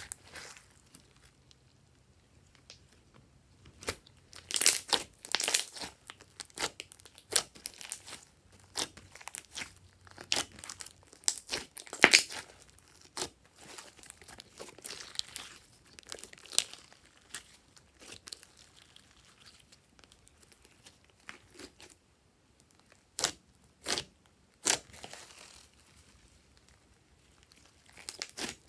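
Glossy slime being squished, stretched and poked by hand, giving irregular sticky clicks and crackling pops, with a short lull near the end.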